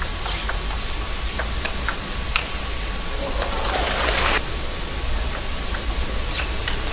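Table tennis ball struck back and forth in a rally, a string of sharp clicks from bat hits and table bounces that stops about two and a half seconds in. A short burst of crowd noise follows at the end of the point, and a few more ball clicks come near the end as play starts again.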